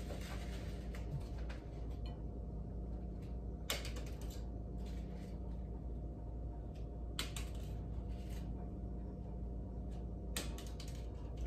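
Three light taps about three and a half seconds apart: crumpled paper balls landing on a table, over a steady low room hum.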